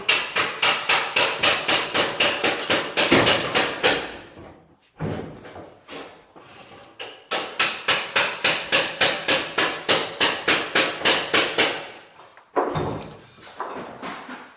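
Rapid, evenly spaced hammer blows on metal, about five a second, in two runs of about four seconds each with a pause between, during preparation of a weld seam on a stainless-steel range.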